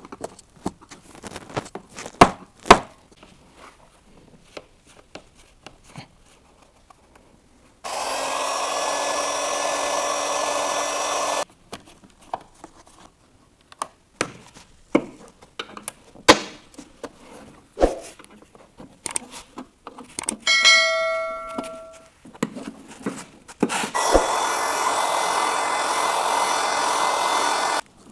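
Hands working with tools and plastic headlight parts: scattered knocks and clicks, and twice a handheld electric tool runs steadily with a faint whine for about four seconds, switching on and off abruptly. Around two-thirds through comes a short, high pitched squeak.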